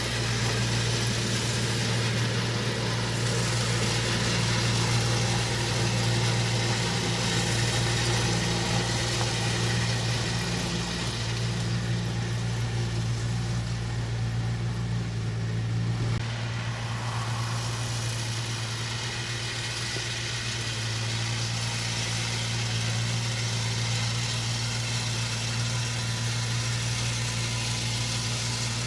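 Engine of a large compost-spreading machine running steadily with a strong low hum; its note shifts slightly about sixteen seconds in.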